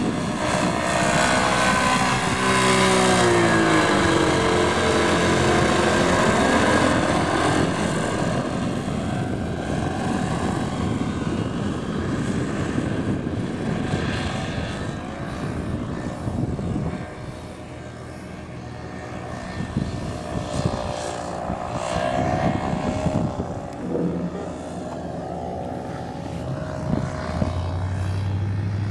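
Paramotor engine and propeller droning as a powered paraglider flies overhead, the pitch sliding down and back up in the first few seconds, then fainter as it flies off.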